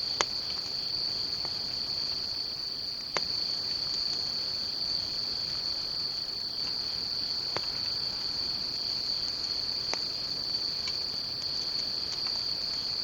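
Crickets trilling in one steady, high-pitched, unbroken drone, with four sharp pops scattered through it.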